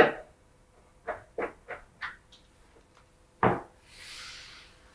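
Cupboard door being handled on Blum hinges: a few light clicks of the hinges and door, then one louder knock as it shuts, followed by a brief faint hiss.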